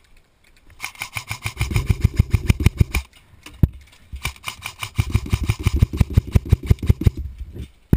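Airsoft M4 rifle firing two long full-auto bursts, a rapid even rattle of shots, the first starting about a second in and the second near the middle, with a single shot between them.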